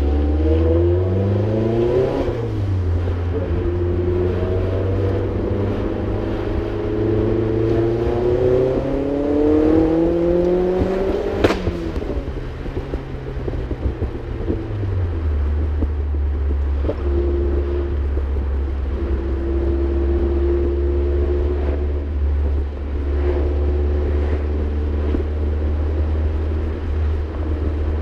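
Modified Mazdaspeed 3's turbocharged 2.3-litre four-cylinder, with a cattless downpipe and HKS cat-back exhaust, heard from inside the cabin. It pulls up through the revs, changes gear about two seconds in, then climbs through a second long pull that ends in a sharp snap near the middle. After that the revs fall away and the engine settles into a steady cruise.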